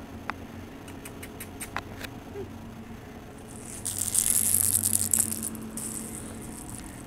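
A kitten's rattle toy ball: a few light clicks, then a loud, hissy rattling about three and a half seconds in that lasts about two seconds.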